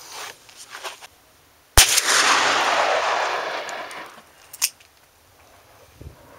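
A single .44 Magnum shot from a Taurus Raging Bull revolver about two seconds in, with a long echo rolling away for over two seconds. A short sharp click follows.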